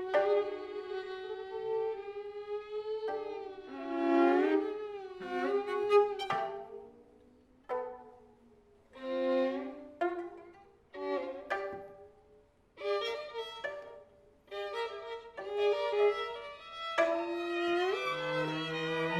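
Instrumental music: sustained notes in short phrases broken by brief pauses, several of them sliding in pitch, with a lower line joining near the end.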